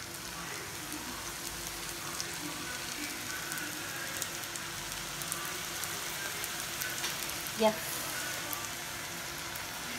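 Hot oil sizzling and crackling steadily as diamond-shaped rava (semolina) dough pieces deep-fry in it. There is one brief, louder sound about three-quarters of the way through.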